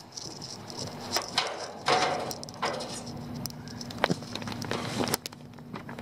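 Scattered clicks, knocks and rustling of hands working on an air-conditioning condensing unit, over a steady low hum.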